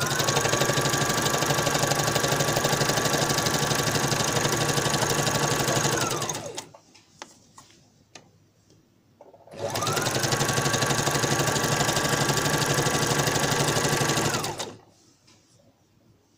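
Brother LX27NT domestic sewing machine running a straight stitch, with its upper thread tension turned up to gather the fabric. It runs in two spells of about six and five seconds, separated by a pause of about three seconds. Each spell is rapid needle ticking over a motor whine that rises as the machine starts and falls as it stops.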